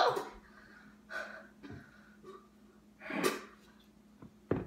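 A boy gagging over a plastic pitcher after swallowing a revolting mixed drink: harsh breaths and gasps, with a louder cough-like retch about three seconds in and a sharp one near the end. The end of a laugh is heard at the very start.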